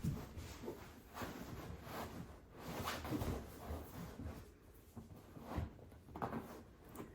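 Soft rustling and handling noises in a small room, with a few light knocks and bumps at irregular intervals.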